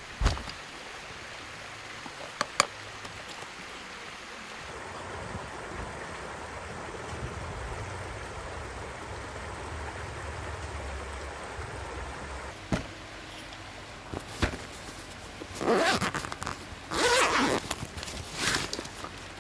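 Steady rushing of river water with a few sharp knocks, then a run of loud rasping, rustling strokes in the last few seconds.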